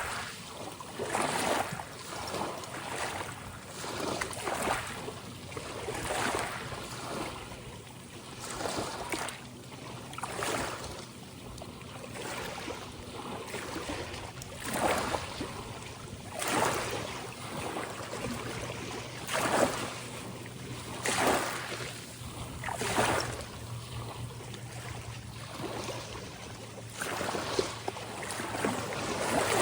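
Small ocean waves washing in and lapping, a splash every second or two.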